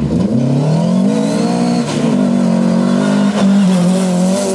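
Opel Manta rally car's four-cylinder engine under hard acceleration on loose gravel. The revs climb for about two seconds, drop sharply at a gear change, then stay high as the car slides through the corner, with gravel hissing under the tyres.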